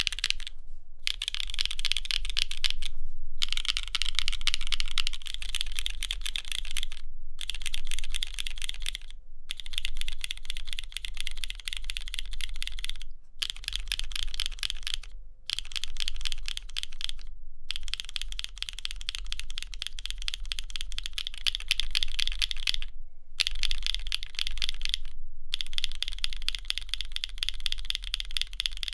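Fast, continuous typing on a mechanical keyboard, all key clacks, in short takes spliced together with abrupt silent breaks between them.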